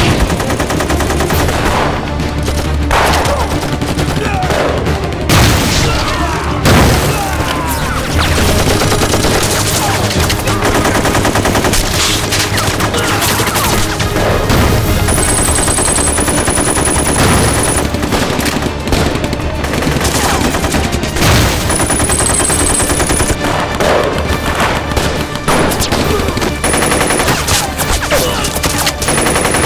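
Film battle sound: dense, continuous rifle and machine-gun fire, with a few louder blasts early on.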